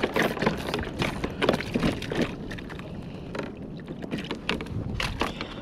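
Irregular knocks, taps and rustles of hands working a sabiki bait rig and live opelu (mackerel scad) on the deck of a plastic fishing kayak. They come thickest in the first two seconds and again near the end.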